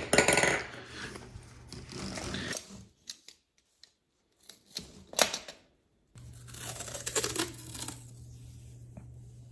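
Plastic hose adapters and their packaging being handled: rustling, crinkling and clicks, loudest at the start. After a near-silent pause, a steady low hum runs under some brief rustling.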